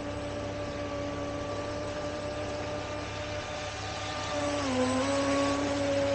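Brushless electric motors of RC boats whining in a steady tone over a rush of water. About three-quarters of the way in, the pitch dips briefly and the rushing grows louder as a speeding RC boat passes close by, throwing spray.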